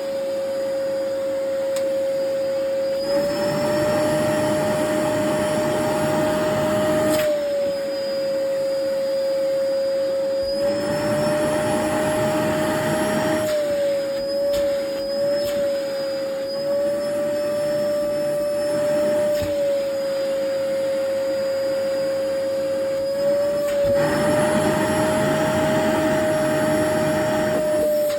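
Vacuum cleaner running with its T-shaped nozzle removed, the bare hose end sucking at clothes. The motor hum shifts slightly in pitch now and then, with stretches of louder rushing air.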